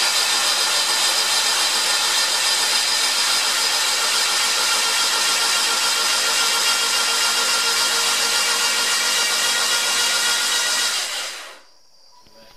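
Starter motor spinning a Saturn twin-cam 16-valve four-cylinder with its spark plugs out and fuel cut, priming the rebuilt engine's oil system to build oil pressure. A loud, even whirring that winds down and stops about eleven seconds in.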